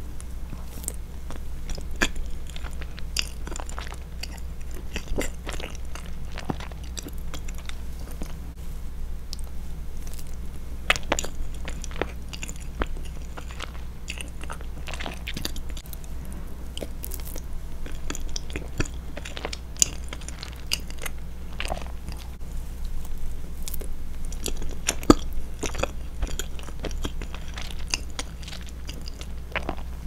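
Close-miked chewing of soft chocolate fondant cake, with many short wet mouth clicks and smacks scattered throughout.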